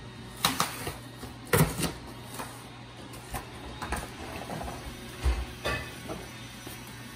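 Rottweiler tearing and chewing a cardboard box: irregular rips and crunches of cardboard, with a dull thump late on.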